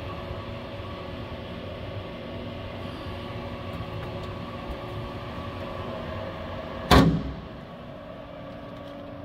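A steel lathe-base cabinet door shut with a single loud bang about seven seconds in, over a steady hum with faint steady tones.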